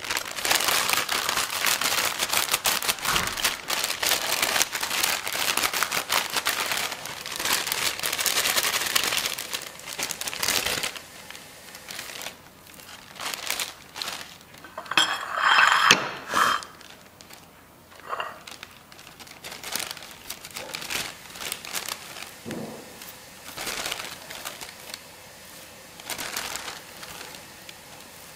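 Crinkling plastic packaging of Korean seasoned seaweed (gim) being opened and handled, with the sheets slid out of their plastic tray. Steady crinkling for the first ten seconds or so, then separate short crinkles, one louder burst about halfway through.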